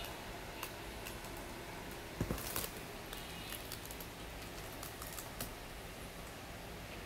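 Fingers handling a Sony Xperia C5 Ultra smartphone: scattered faint taps and clicks on the phone, with a short cluster of louder knocks about two seconds in, over steady room hiss.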